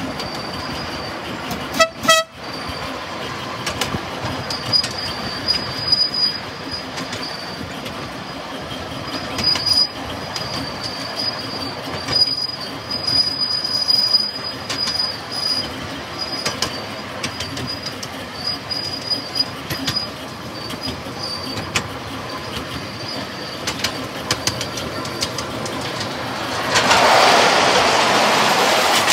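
Miniature railway train running along its track: a steady clatter of wheels over the rails, with a high wheel squeal that comes and goes, strongest on a curve. A short toot sounds about two seconds in. Near the end the rumble grows louder as the train runs onto a small bridge.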